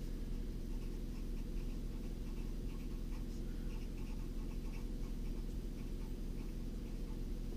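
Felt-tip marker writing on paper in short, faint strokes, over a steady low hum.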